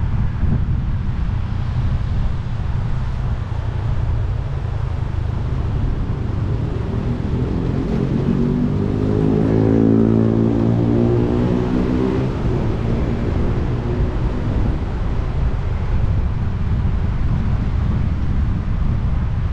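Steady low road rumble with wind on the microphone. From about eight seconds in, a vehicle engine's drone swells, peaks and fades away over some five seconds.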